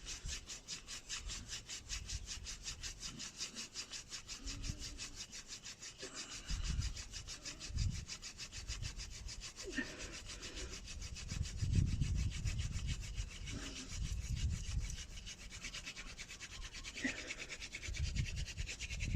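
Hand drill friction fire: a seasoned elder spindle spun back and forth between the palms, its tip grinding into an ivy hearth board in a steady, fast rhythm of rasping wooden strokes, with occasional low thumps.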